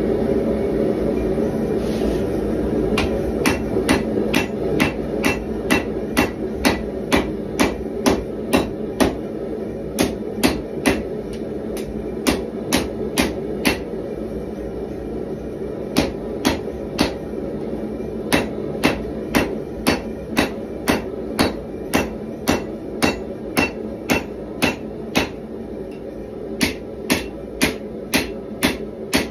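Hand hammer striking a red-hot bar of 1095 carbon steel on an anvil, forging a knife blade. The blows start about three seconds in and come about two a second, with a few short pauses, over the steady rush of a propane forge's burners.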